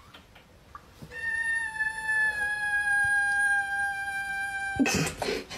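A kitten giving one long, drawn-out meow, held for nearly four seconds with its pitch sinking slightly, then a short burst of noise near the end.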